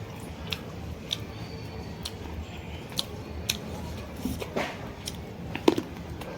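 Close-miked chewing of chicken liver and gizzard curry, with irregular wet mouth clicks and smacks about every half second to a second, the loudest near the end.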